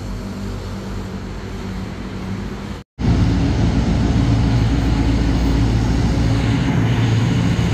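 Diesel-electric locomotive No. 4416, an SRT Alsthom unit, running as it approaches with a freight train: a loud, steady low engine drone that starts abruptly about three seconds in. Before that there is a quieter steady background rumble.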